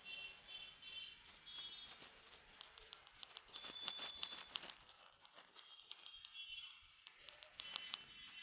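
Hands rubbing and scratching vigorously through hair and over the scalp during a head massage: a dense crackle of small high clicks, busiest in the middle, with a few short high squeaks.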